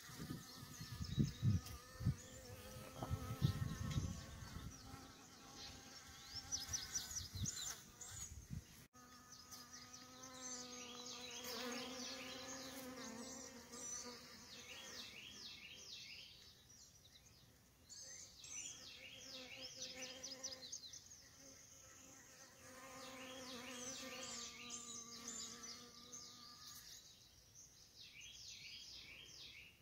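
Bees buzzing in flight: a steady hum that comes and goes in spells of a few seconds. Repeated high chirping sounds in the background throughout, and low rumbles in the first several seconds.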